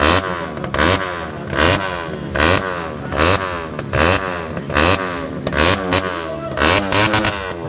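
Tuned Yamaha WR dirt bike engine revved in repeated quick throttle blips, about one every 0.8 s; each rev climbs in pitch, then falls back toward idle.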